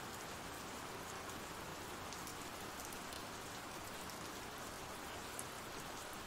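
Steady rain falling, an even soft hiss with scattered faint drop ticks.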